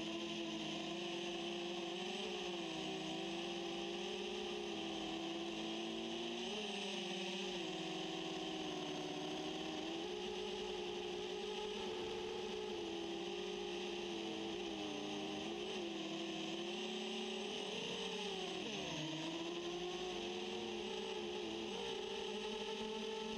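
Quadcopter's four SunnySky A2212 980KV brushless motors and 10-inch propellers whirring in flight, heard from the camera on board. The pitch wavers up and down as the throttle changes, with a brief dip about eighteen seconds in.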